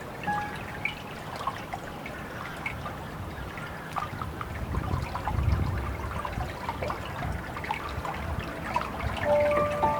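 Water trickling and splashing, with many small drips and a louder low surge about five and a half seconds in.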